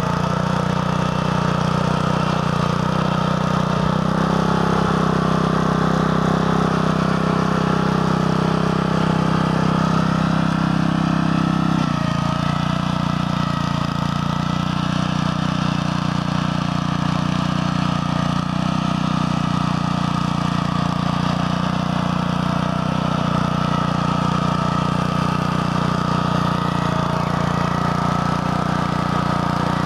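BCS 850 walk-behind tractor's engine running steadily under load while it drives a Berta rotary plow through sod. The engine note shifts about four seconds in and again about twelve seconds in.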